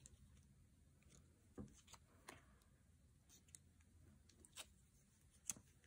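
Faint, scattered light clicks and rustles of small paper photo cards being handled and leafed through by hand, about half a dozen soft ticks spread irregularly.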